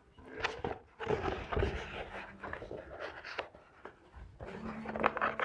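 A curled paper photo print rustling as gloved hands unroll it and smooth it flat inside a wooden frame, with irregular scuffs and small taps.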